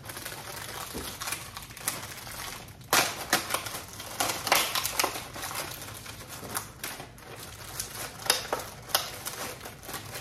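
Thin clear plastic clamshell cookie container crackling and clicking as it is handled and pried open. A steady run of irregular crinkles and snaps, with the sharpest ones about three and four and a half seconds in and again near the end.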